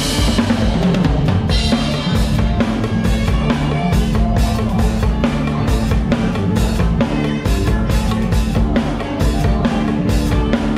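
Drum kit played hard and fast inside a live band: kick drum, snare and cymbals driving over a steady electric bass line, opening with a cymbal crash.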